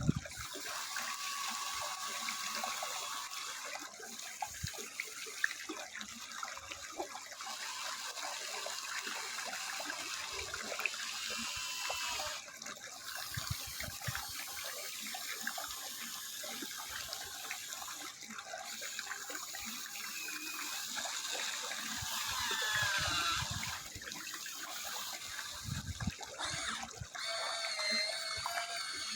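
Small electric motors of an Amewi RC excavator whining and gliding up and down in pitch over a steady rushing hiss, with scattered light knocks.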